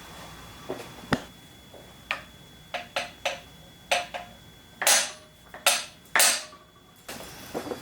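A hammer tapping a metal punch inside a Bernina 217 industrial sewing machine: about nine sharp metallic taps with brief ringing, spaced unevenly, the last few harder. Each tap nudges a part a little further into position.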